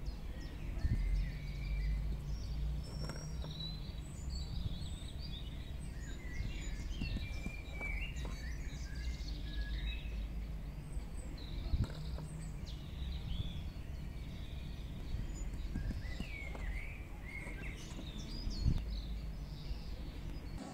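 Small birds chirping and calling in short, rapid phrases over a steady low outdoor rumble, with a few soft knocks.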